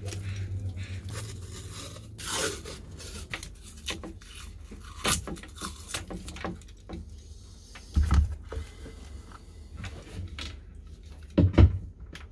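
Painter's tape pulled off the roll and wound around a wooden paddle handle, with crackly tearing and peeling sounds, and a few dull knocks as the paddle and camera are handled, loudest near the end.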